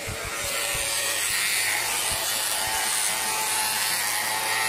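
Electric hair clippers running with a steady hum as they shave the hair at the back of the head down short.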